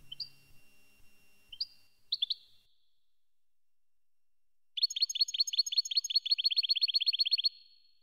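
European goldfinch calling: a few short, separate chirps, then a fast, even trill of about twenty notes lasting under three seconds that stops abruptly.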